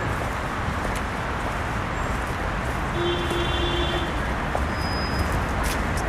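City street noise: a steady rumble of traffic, with a short steady tone lasting about a second, some three seconds in.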